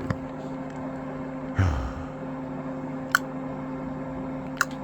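Steady electrical hum, broken by a few short sharp clicks and one soft low thump about one and a half seconds in.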